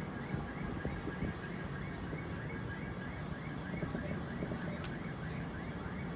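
Car alarm sounding with a repeating chirp about four times a second, over a low rumbling background, with a single sharp click late on.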